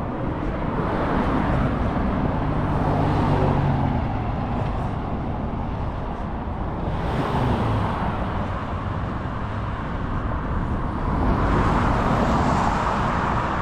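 Road traffic: cars passing one after another on a multi-lane street, with tyre noise swelling and fading three times. The loudest pass comes near the end, as a sedan goes by close.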